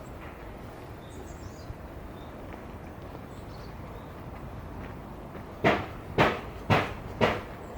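Steady outdoor background noise with faint bird chirps, then, near the end, four crunching footsteps about half a second apart.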